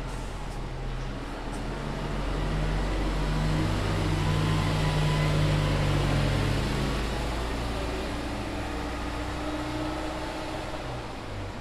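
Bus driving past with its engine running: the engine note grows louder to a peak about halfway through, then fades as the bus moves away.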